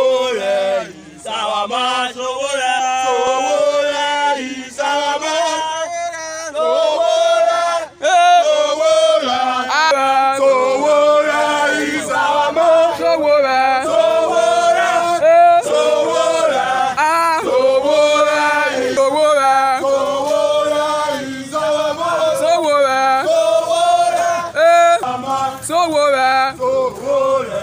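A group of protesters singing a chant together, with voices held on long notes and brief pauses between lines.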